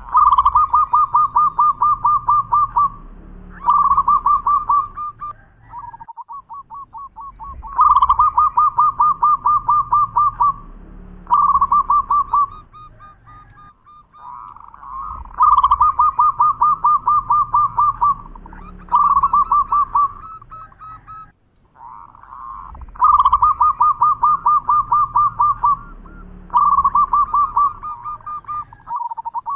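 Zebra dove (perkutut) singing its cooing song: repeated phrases of fast rolling coo notes, each phrase two to three seconds long, with short pauses and softer lead-in notes between them.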